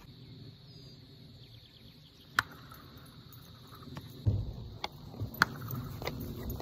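Plastic wiffle ball bat cracking against wiffle balls: a sharp crack about two and a half seconds in and two more near the end, over a faint steady insect buzz.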